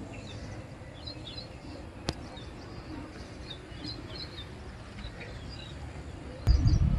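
Small birds chirping faintly and intermittently, with a single sharp click about two seconds in and a loud low rumble starting near the end.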